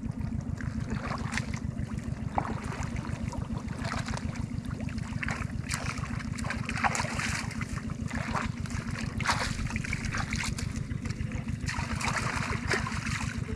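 Water rushing and splashing, with irregular splashes and crackles, over a steady low rumble.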